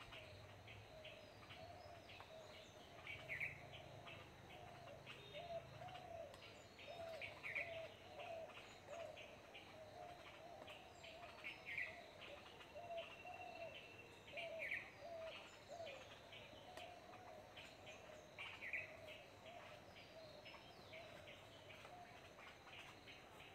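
Birds calling: a short falling chirp about every three to four seconds, over a lower run of quick repeated notes that fades out in the second half.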